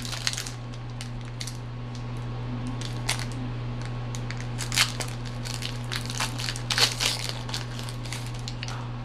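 A trading-card booster pack's foil wrapper being torn open and crinkled by hand: irregular crackles and rustles, loudest about five and seven seconds in.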